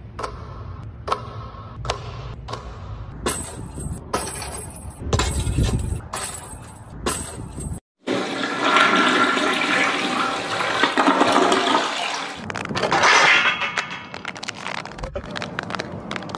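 A basketball dropping through hoop nets several times, each pass a sharp swish or rattle. Then a toilet flushing for about four seconds, water rushing and swirling down the bowl, followed by another loud rushing noise.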